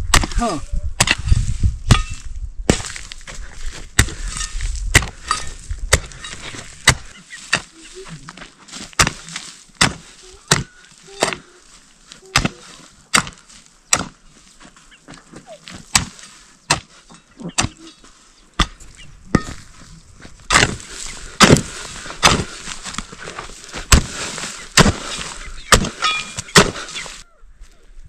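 Kodalo (Nepali hoe) chopping into hard fallow ground over and over, a little more than one stroke a second, as the soil is broken for planting.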